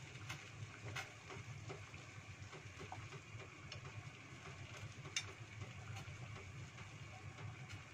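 Water boiling in a stainless steel pot over a gas burner: a steady low burner rumble under the bubbling of the water. A few sharp ticks, the loudest about five seconds in, as skewered sempol tofu dough is lowered into the pot.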